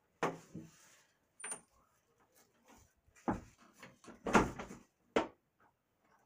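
About six short bumps and rustles with quiet gaps between them, the loudest a little past the middle: handling noise from a phone being moved about against bedding.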